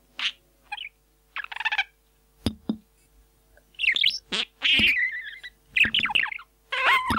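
A pet parrot chirping and whistling close into a microphone: short separate chirps and a couple of sharp clicks at first, then busier, warbling chatter in the second half.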